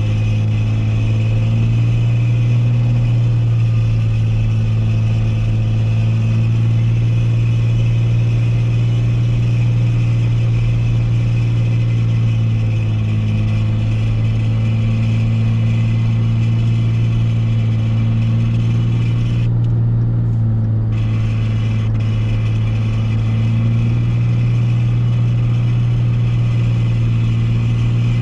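Steady in-cab drone of a Dodge Ram pickup driving at a constant road speed: a low, even engine and road hum with no revving.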